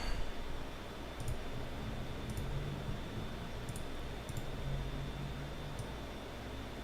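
A few light clicks at a computer, about five, spaced irregularly about a second apart, over a low steady hum and a faint high-pitched whine.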